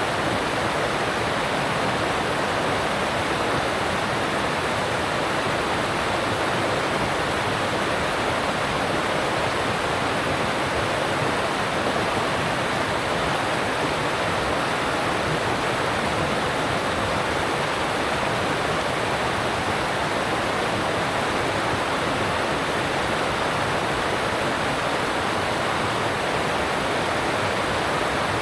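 Alpine stream rushing over rocks: a steady, even roar of fast-flowing water that does not change.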